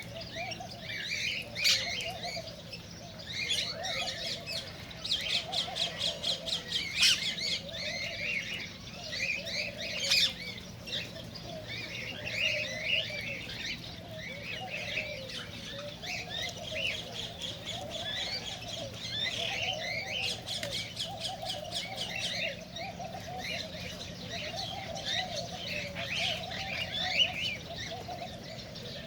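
Cockatiels chirping and squawking, many short calls overlapping with lower warbling notes beneath them, and a fast run of clicking chatter about five to seven seconds in. A steady low hum runs underneath.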